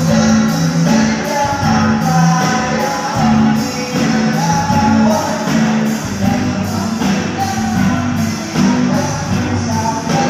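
Live rock band playing through a PA: electric guitars, bass, keyboard and drums with a steady beat, and a singer's voice carrying the melody.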